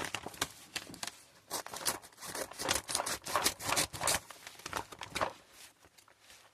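A parcel being opened by hand: packaging rustling, crinkling and tearing in an irregular run of short bursts.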